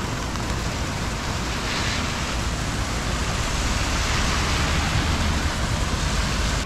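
Heavy rain falling steadily, with a low rumble underneath; it swells a little past the middle.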